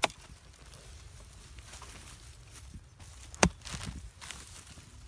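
A metal-handled digging tool striking into the earth while digging open a rat burrow. There is a sharp hit at the start and a louder one about three and a half seconds in, followed by a few softer knocks.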